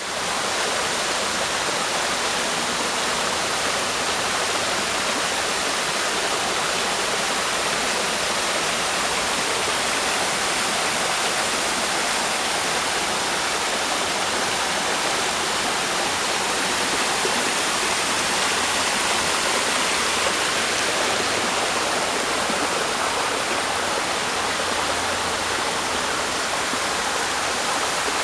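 Running water: a steady, unbroken rush of flowing water, like a stream or small waterfall.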